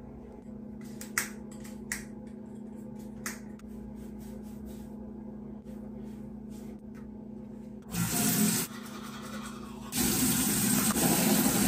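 Bathroom sink tap running into the basin, in a short spell about eight seconds in and again from about ten seconds in, over a steady low hum. A few light clicks come in the first few seconds.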